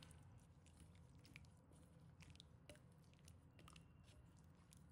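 Near silence with a few faint, scattered soft clicks: chopsticks stirring chopped vegetables in a bowl of sauce.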